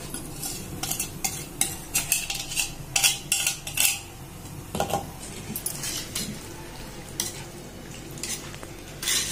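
A metal utensil stirring raw chicken pieces into a thick yogurt-and-egg marinade in a terracotta pot, with repeated short scrapes and clinks against the clay. The strokes come quickly in the first four seconds and then more sparsely.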